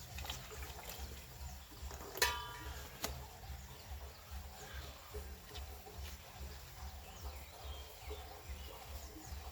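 Dishes being washed by hand: a sharp, ringing clink of a utensil about two seconds in and a light tap about a second later, over a faint background with a low, even pulsing.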